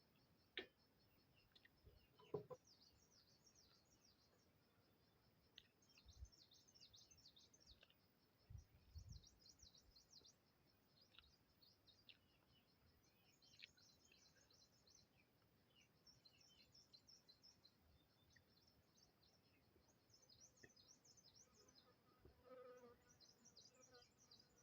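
Near silence with faint, high-pitched chirping that comes in short clusters every second or two, plus a few soft knocks, the loudest about two and a half seconds in.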